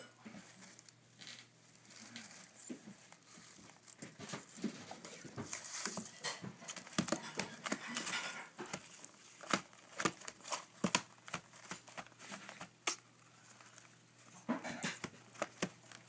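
Newspaper and tissue paper rustling and crinkling under two African grey parrot chicks as they shuffle about, with many sharp clicks and taps. It is busiest through the middle seconds and picks up again briefly near the end.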